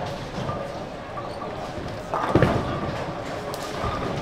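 Bowling-center din of balls and pins, with voices in the background and a heavy thud about two seconds in.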